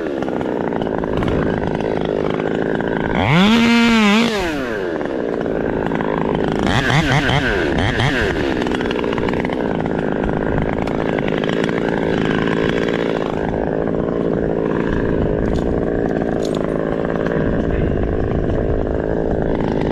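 Chainsaw revving up and back down about three and a half seconds in and again about seven seconds in, then running steadily.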